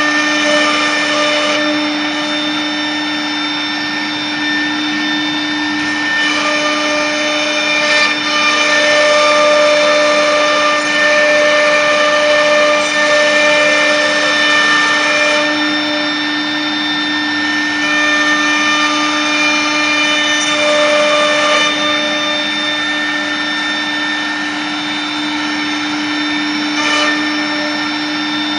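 CNC router spindle running at a steady high pitch with a whine, over a haze of noise. The higher tones change every few seconds.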